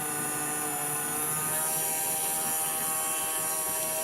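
Small wood lathe's motor running steadily with a whine of several constant tones, spinning pen blanks on the mandrel while friction polish is rubbed on with a tissue.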